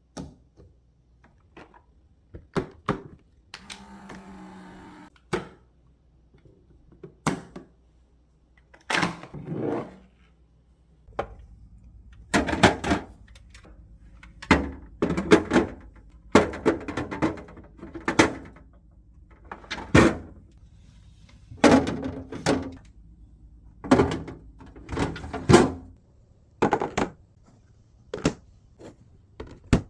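Irregular knocks and clunks of containers and lids being handled and set down, about a dozen in all, with a low steady hum underneath from about eleven seconds in.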